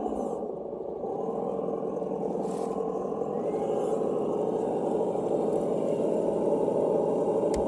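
Simulated engine sound from an RC crawler's Reely sound module, played through a small onboard speaker. It runs steadily, dips briefly about half a second in, then grows slowly louder.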